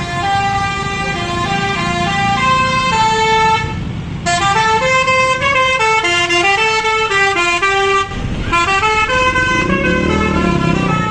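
Bus 'telolet' horn, a multi-tone musical air horn, playing a quick tune of stepped notes in three phrases, with short breaks about four and eight seconds in. A low rumble runs underneath.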